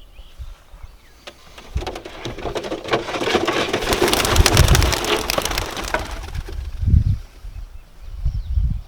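Gusts of strong wind buffeting the microphone with low rumbling thumps. A dense crackling rustle builds over a few seconds and dies away about two-thirds of the way through.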